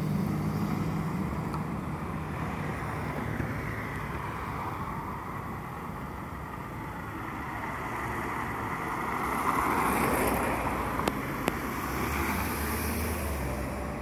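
Street traffic going by, a steady road noise. One vehicle passes loudest about ten seconds in, and two sharp clicks follow shortly after.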